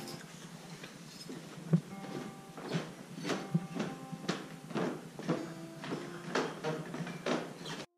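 Footsteps going down a carpeted wooden staircase, soft thuds about two a second starting nearly three seconds in.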